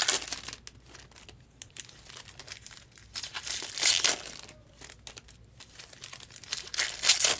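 Foil trading-card pack wrappers crinkling and tearing as packs are opened and cards handled, in several rustling bursts: one at the start, one about four seconds in and one near the end.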